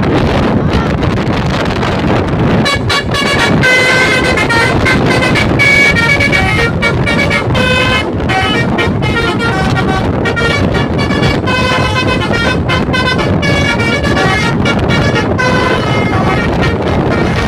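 Telolet horn, a multi-tone musical horn, playing a run of short melodic toots that change pitch. The toots start about two and a half seconds in and repeat with brief pauses, over a steady noisy rumble of vehicles and wind.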